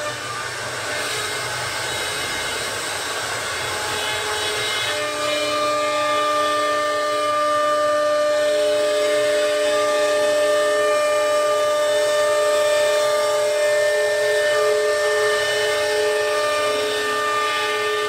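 CNC router spindle cutting a wooden board, a steady whine of several held tones over a rush of noise, growing firmer and slightly louder about five seconds in.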